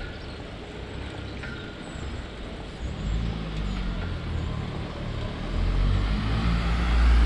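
A motor vehicle's engine hum coming closer, growing louder from about three seconds in and loudest near the end.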